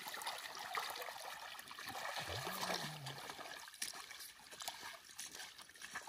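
Shallow river water splashing and trickling around wading boots as a seine net is hauled in and lifted dripping from the water. A brief murmured voice is heard about two seconds in.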